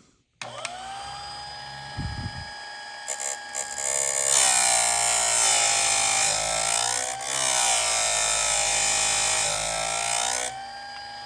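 Electric chainsaw sharpener: its motor whines up to speed. From about four seconds in, its grinding wheel is lowered onto a chain tooth and grinds it, much louder, for about six seconds. Near the end the wheel is lifted and the motor runs on alone.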